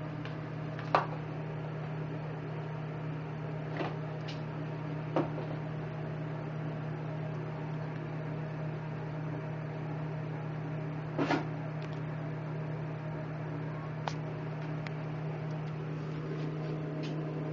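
Steady low electrical-sounding hum, with a few light clicks and knocks scattered over it, the loudest about eleven seconds in.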